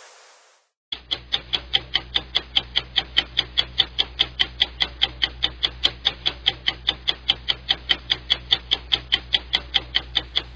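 Rapid clock ticking, about five even ticks a second over a low hum, starting about a second in after a brief silence: a sped-up ticking sound effect for time passing.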